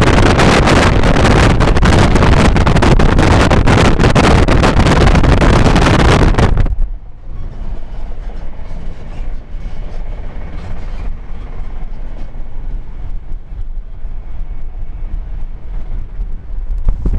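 Moving passenger train heard at an open window: loud rushing wind and wheel-on-rail noise. About seven seconds in it drops suddenly to a much quieter rumble with light rattles from inside the carriage, then rises to the loud rush again near the end.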